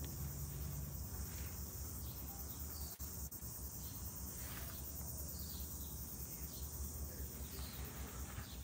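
Steady high-pitched chorus of night insects, over a low rumble.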